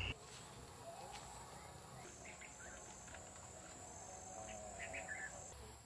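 Faint field ambience: insects chirping steadily at a high pitch, with a few short bird chirps.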